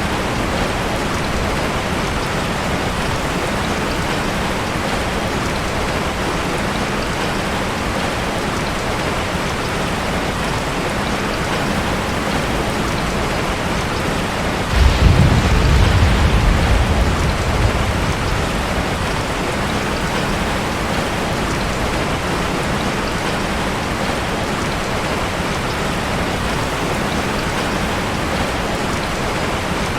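Steady rain falling, with one rumble of thunder about halfway through that swells suddenly and fades over a few seconds.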